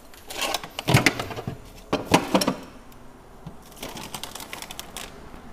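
A ceramic bowl being set into a refrigerator and things on its shelves shifted: several clattering knocks in the first two and a half seconds, then lighter rattling.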